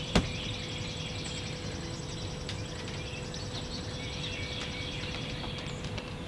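Outdoor backyard ambience: birds chirping in the background over a steady high trill, with one sharp click about a fifth of a second in.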